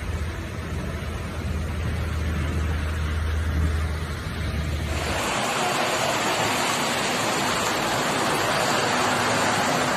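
Steady rushing of floodwater and rain, with a low hum underneath for the first half. About five seconds in it changes to a brighter, louder rush of muddy water flowing down a street.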